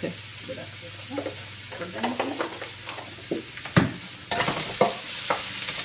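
Wooden spatula stirring and scraping grated coconut, onion and turmeric around a hot nonstick wok, with short scrapes and knocks over a frying sizzle. The sizzle gets clearly louder about four seconds in, just after a sharp knock.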